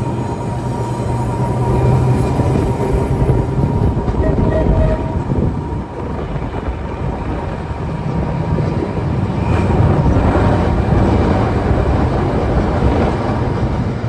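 Open-top boat streetcar running along the rails: a steady rumble of wheels and motor with wind noise, and a faint whine that fades out about halfway through.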